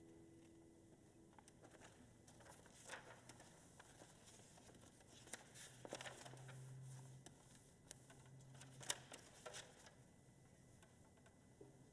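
Near silence after a classical guitar piece: the last guitar note dies away in the first second, then faint scattered rustles and clicks of sheet music being handled and players shifting in their seats.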